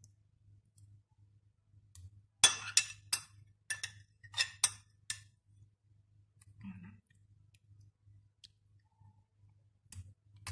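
Metal spoon clinking and scraping against glass while tomato sauce is scraped out and spread over a tart base in a glass dish: a run of sharp clinks between about two and five seconds in.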